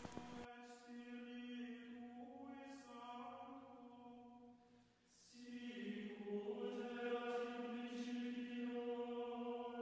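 Faint background music of slow, sustained chanted voices holding long notes, breaking off for a moment about halfway through and then resuming.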